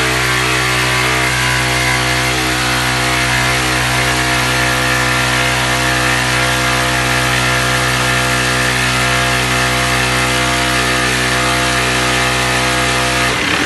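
Festool cordless jigsaw running steadily as it cuts wood, with a brief break near the end.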